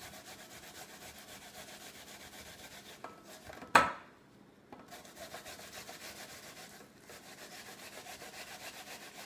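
Asian pear being grated on the fine side of a metal box grater: quick rasping strokes, about four a second. A single sharp knock comes near the middle, followed by a brief pause before the grating resumes.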